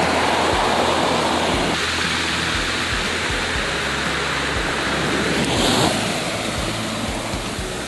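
Surf washing onto a pebble beach, a steady rushing wash that swells again with a brighter hiss about two thirds of the way through.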